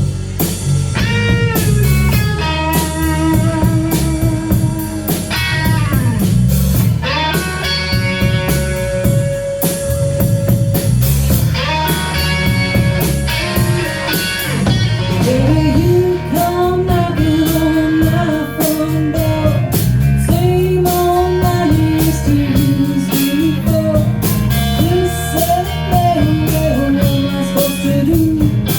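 Blues-rock band playing, with electric guitar out front, its notes bending in pitch, over bass and drums.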